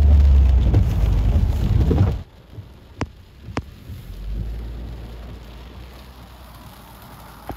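Rain and floodwater being churned and splashed by vehicles driving through a flooded street, loud, with a heavy low rumble. About two seconds in it cuts to a much quieter vehicle cab, with a low steady engine hum and two sharp taps.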